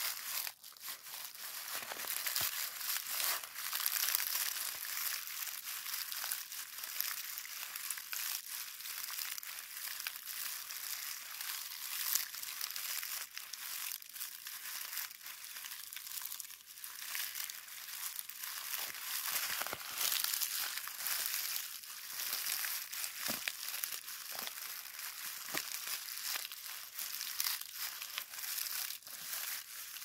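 A soft white pad in thin, crinkly white wrapping, squeezed and kneaded in the hand: a continuous crinkling rustle full of small crackles.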